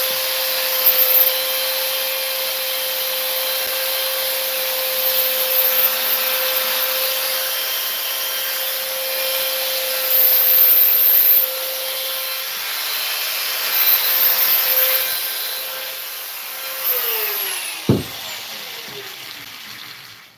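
Belt sander running on fiberglass, a steady whine under the grinding hiss, louder in spells as it bears on the surface. About 17 seconds in it is switched off and the whine falls away as the belt spins down, with a single knock about a second later.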